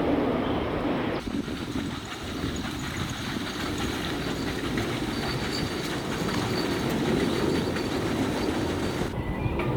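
Steady rumbling noise of a train running on rails, changing abruptly about a second in and again near the end.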